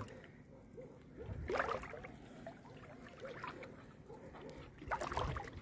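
Footsteps wading through shallow seawater, with two louder sloshing splashes: one about a second and a half in and one near the end.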